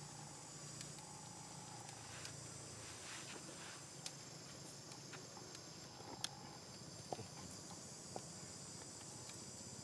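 Steady high-pitched insect chorus, with a few short sharp clicks scattered through it, the loudest about six seconds in.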